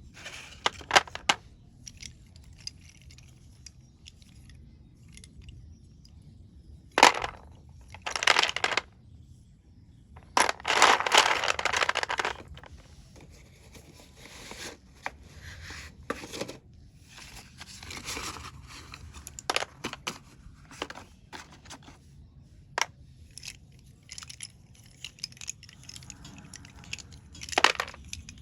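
Slate pencils and their packaging being handled. The wrapping crinkles and tears, with scrapes and sharp clicks as the pencils knock together. The longest, loudest rustle lasts about two seconds near the middle.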